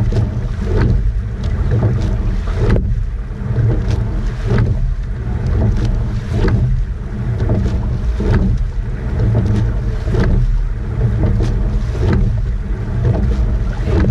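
A sweep-oar rowing eight under way at racing pace: a sharp knock of the oars in their oarlocks at each stroke, about one every two seconds, over a steady low rush of water along the hull and wind on the microphone.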